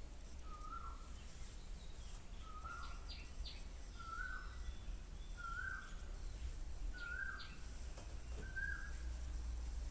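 Birdsong: one bird repeats the same short call about six times, roughly every second and a half, with a few thin, higher chirps from other birds in between, over a low steady hum.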